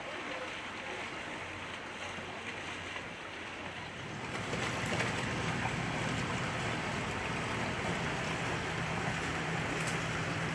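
Boat engine running over a wash of water and wind noise; its low steady hum comes in and grows louder about four seconds in, as a boat draws near.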